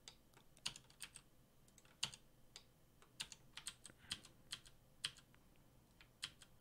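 Faint, irregular clicking of computer keys, a dozen or more separate key presses.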